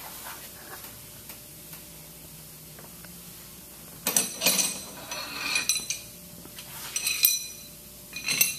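Long metal bolts clinking and ringing against one another and their metal rack as they are picked up, in several bursts starting about four seconds in.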